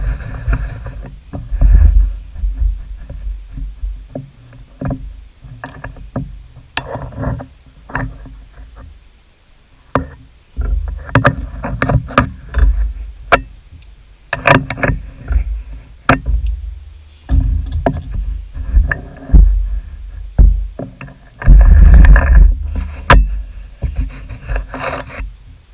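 Irregular metallic clicks, knocks and rattles of tools and parts being handled at a metal lathe's tool post and carriage, close to the microphone, with spells of low rumble between short pauses.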